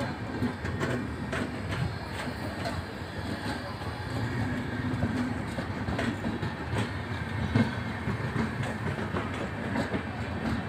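Passenger coaches of the 12850 Pune–Bilaspur Superfast Express, Indian Railways LHB sleepers, rolling past close by at speed: a steady rumble, with irregular sharp clicks of the wheels over rail joints.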